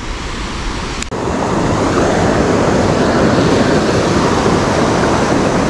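Fast river water rushing steadily, a loud even noise that jumps louder about a second in.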